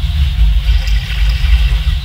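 Eerie drone sound effect: a deep rumble that wavers in loudness, under a steady airy hiss.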